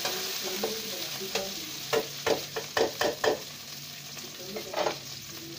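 Sliced onions and green chillies sizzling in hot ghee in a metal kadai, with a metal spatula scraping and knocking against the pan as they are stirred. This is the stage of frying the onions until lightly browned. The stirring strokes come thickest in the first three seconds or so, and the sizzle continues after them.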